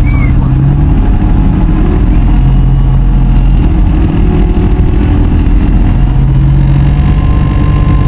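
Irisbus Citelis Line city bus standing with its engine running and its engine cooling fan blowing hard. A low hum swells and fades a few times over the steady drone.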